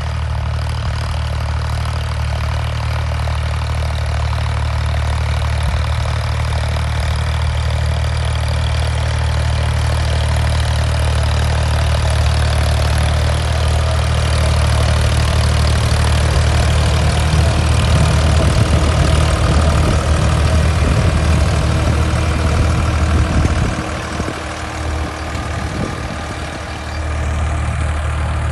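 Ford 3600 tractor's three-cylinder diesel engine running steadily under load while pulling a cultivator through the field. It grows louder and rougher as the tractor passes close, about two-thirds of the way in, then drops briefly before rising again near the end.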